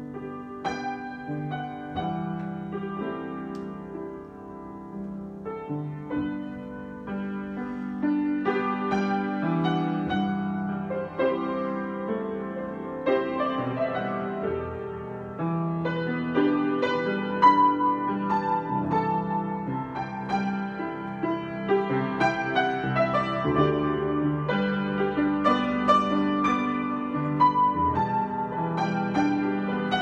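Solo grand piano improvisation, starting softly and growing louder and busier as it goes on.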